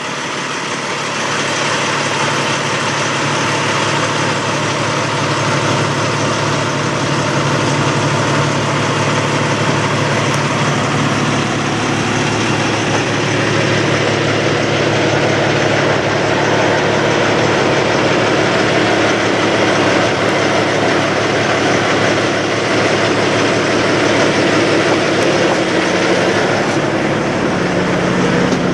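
Semi truck's diesel engine idling steadily up close, with a faint high whine that fades out about ten seconds in.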